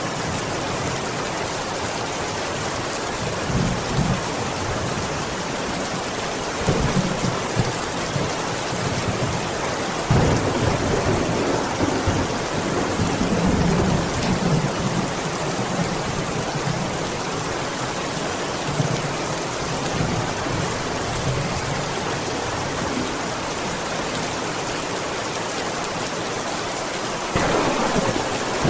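Heavy rain falling steadily, with rolls of thunder rumbling in several times, the longest about ten seconds in and another near the end.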